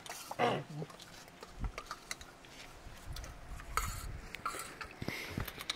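Steel spoon clinking and scraping against a stainless steel plate of rice and potato curry, in scattered short clicks. About half a second in comes a short falling cry, the loudest sound.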